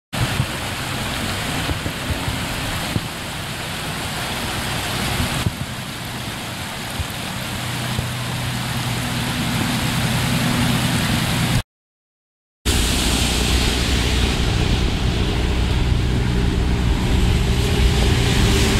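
Heavy rain and rushing floodwater making a steady loud hiss, with a low steady hum underneath. The sound cuts out for about a second partway through, then carries on.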